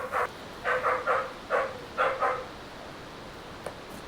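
A dog barking: a quick run of about eight short barks in the first two and a half seconds, then it stops.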